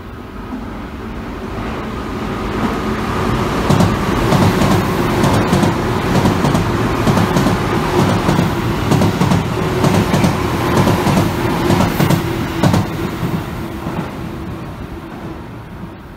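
Tobu 10050 series ten-car electric commuter train passing through a station without stopping. Its rumble builds over the first few seconds, then the wheels clatter rhythmically over the rail joints for about ten seconds as the cars run by, and the sound fades as the train moves away.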